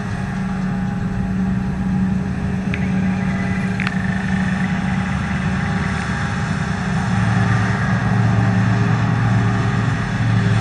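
John Deere 7750i self-propelled forage harvester and tractors running steadily while the harvester chops grass and blows it into a trailer: a continuous engine drone that grows a little louder about seven seconds in. Two brief clicks come about three and four seconds in.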